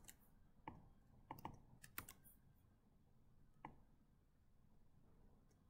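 About seven faint, scattered clicks of a computer keyboard and mouse, irregularly spaced and bunched in the first two seconds, with one more a little later.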